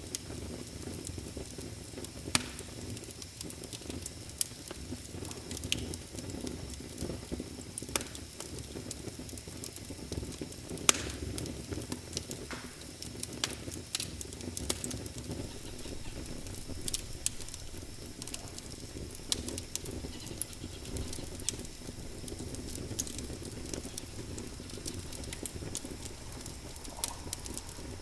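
Wood fire burning in a fireplace: a steady low flame rumble with irregular crackles and sharp pops, the loudest pops about two seconds in and again about eleven seconds in.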